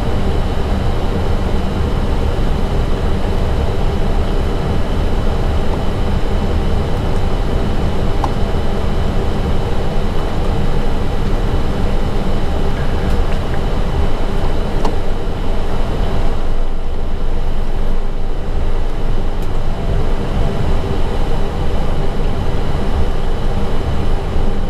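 Airbus A320 cockpit noise as the aircraft rolls on the ground after landing: a steady low rumble with hiss above it and a few thin, steady high tones.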